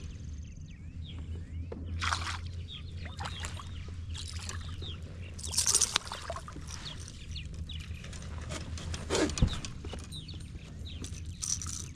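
Water splashing and sloshing in four short bursts beside a kayak: a hooked bass thrashing at the surface as it is played in. Birds chirp faintly throughout.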